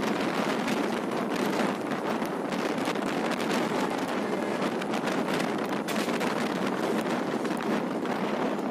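Passenger express train running at speed: a steady rushing noise thick with irregular rattling and clatter, with wind buffeting the microphone.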